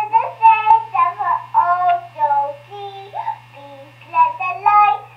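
A child singing a melody, heard through the speaker of a Fisher-Price 900 MHz baby monitor, with a steady low hum underneath.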